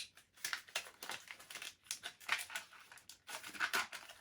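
Hard plastic blister packaging crackling and rustling as it is handled and pulled apart, in a run of short irregular crinkles.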